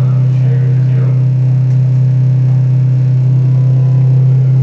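Loud, steady low electronic drone: a single unchanging bass tone with faint overtones, the soundtrack of a noise-and-strobe audiovisual clip.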